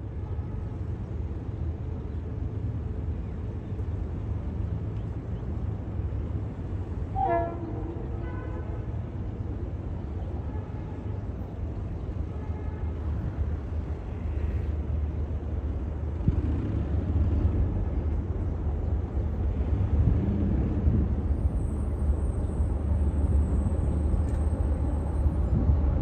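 Steady low outdoor rumble with wind at an elevated rail platform. About seven seconds in, a brief horn toot sounds twice in quick succession.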